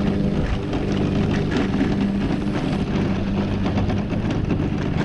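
Electric mobility scooter driving along a rough road: a steady hum from its motor and drive, over the rumble of its small tyres on the asphalt.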